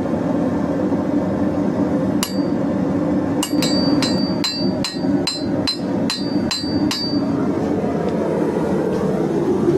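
Hand hammer forging hot steel bar, each blow ringing: a single strike about two seconds in, then a run of about ten quick strikes, roughly three a second, that stops about seven seconds in. A steady rushing noise runs underneath.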